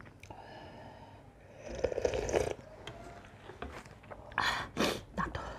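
Slurping thin buckwheat soup from a spoon, the loudest sip about two seconds in, with two short, sharp mouth noises near the end.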